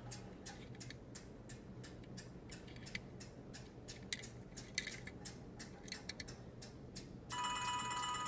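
Quiet light clicking and ticking of a small die-cast model car being handled. About seven seconds in, a phone starts ringing with a melodic ringtone, which is the loudest sound.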